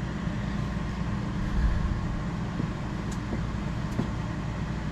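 Electric heat gun running steadily, a constant blower hum with a rush of air, as it heats a solder seal wire connector to shrink its sleeve and melt its solder ring.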